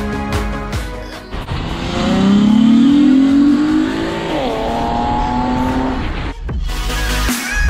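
Acura TL V6 with J-pipe and aftermarket mufflers accelerating hard: engine pitch climbs, dips at a gear change about four seconds in, then pulls again. Background music plays before and after the engine burst.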